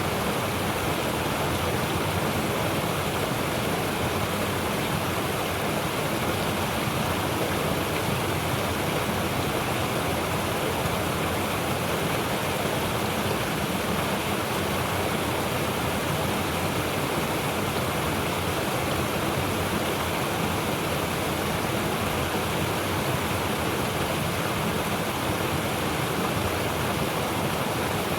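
Mountain stream rushing over rocks, a steady, even rush of water with a deep low rumble beneath it.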